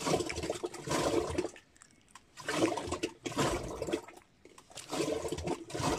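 Curd being churned in a large clay pot by a wooden churning stick spun with a pulled rope: wet sloshing swishes that come in surges about every two seconds, with short quiet gaps as the rope changes direction.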